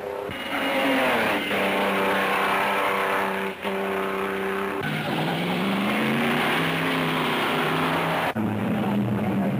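1930s racing car engines running hard at speed, the engine note gliding up and down and changing abruptly several times.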